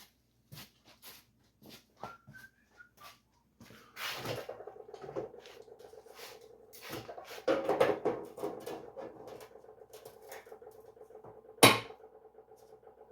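Vise-grip locking clamps and loose steel clicking and clattering as a pipe-half patch is clamped onto a steel tailgate, with one sharp snap near the end. A steady hum comes on about four seconds in and runs under the clatter.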